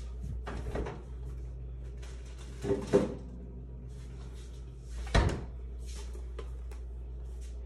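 Three separate knocks and clatters of things being handled in a kitchen, about two seconds apart, the last one the loudest, over a steady low hum.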